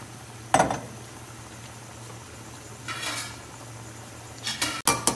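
A metal spoon knocking and scraping against a large metal cooking pot over a steady low hum: one sharp clank about half a second in, a short scrape around the middle, then a run of quick clinks near the end as stirring starts.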